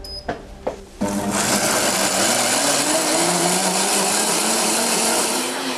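High-speed blender starting up after a few clicks at its control panel, then grinding soaked grains, purple sweet potato, yam, red beans and water into a rice paste. The motor cuts in about a second in, and its low hum climbs in pitch over the next few seconds as it spins up under the load, under a steady dense grinding noise.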